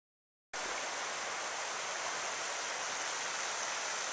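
Fast-flowing river rushing over rocks, a steady even rush that cuts in abruptly about half a second in.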